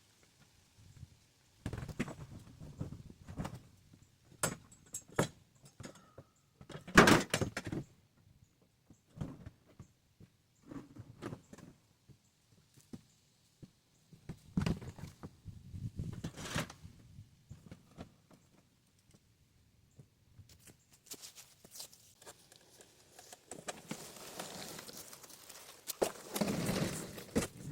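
Irregular knocks, thunks and clatters of things being handled and set down, the loudest about seven seconds in, followed near the end by a few seconds of rustling and scraping.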